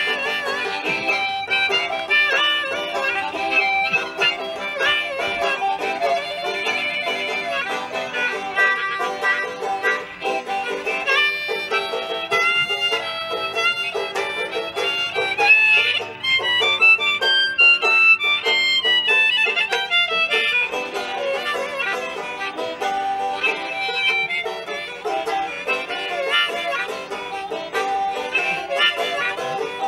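Banjo and harmonica playing an instrumental folk tune together, the banjo picked under sustained harmonica notes, with a quick run of high notes climbing and falling about halfway through.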